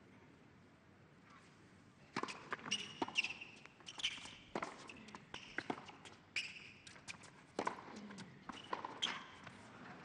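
A tennis rally on an indoor hard court. Racket strikes and ball bounces make sharp knocks with a short ring, starting about two seconds in and coming every half second to a second, with high squeaks of shoes on the court in between.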